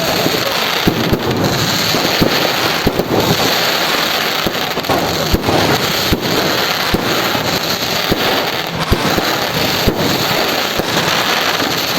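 Many fireworks going off together: a continuous din of overlapping bangs and crackles with no let-up.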